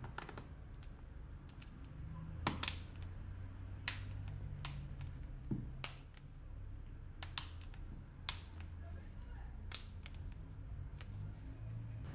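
Irregular sharp clicks and taps, about ten of them, some in quick pairs, from handling a smartphone's small parts and tools during disassembly or reassembly.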